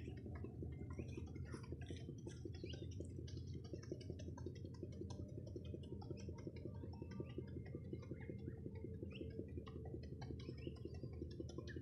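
Diesel engine of a Nautitech 48 sailing catamaran motoring, a faint low steady rumble with a rapid even pulse, with scattered small clicks above it.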